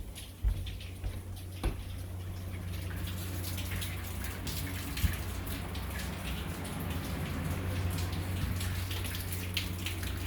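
Water running steadily from a tap, building up after a couple of soft knocks near the start.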